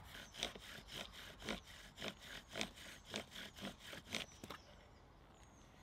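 Bow drill at work: the wooden spindle rubbing in the hearthboard with each back-and-forth stroke of the bow, about two strokes a second. The strokes stop about three-quarters of the way through.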